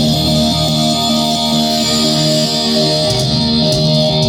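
Rock band music led by guitar, with sustained chords ringing steadily.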